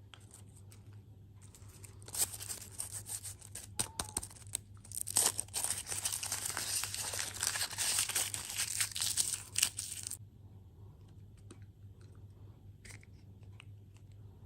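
Crinkly packaging being torn and crumpled: a dense crackling rustle with sharp crackles that lasts about eight seconds, then a few faint clicks.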